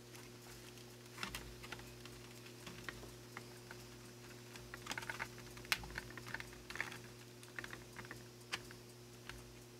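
Irregular light clicks and taps of plastic model-kit parts and wiring being handled and pressed into place, over a low steady electrical hum.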